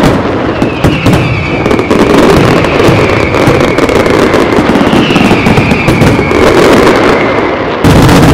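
Pirotecnia Martí's professional fireworks display: a dense, continuous crackling and popping of bursting shells. Two falling whistles rise above it, one about a second in and one about five seconds in, and a louder bang comes near the end.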